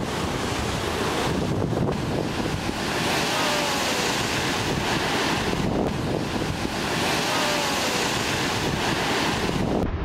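Heavy surf breaking against a concrete ocean-pool wall and pouring back off it, rising and falling in surges, with wind rumbling on the microphone.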